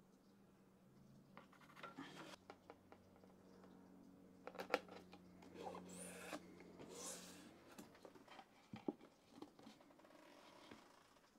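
Near silence with a few faint scrapes and clicks of hand work on the wooden dog-bed platform and leg, and a faint low hum.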